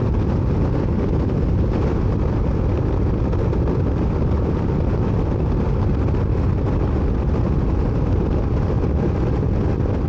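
Wind noise at highway speed on a Honda CRF1000L Africa Twin with no wind deflectors fitted: a loud, steady, deep rush of air over the windscreen and the handlebar-mounted camera.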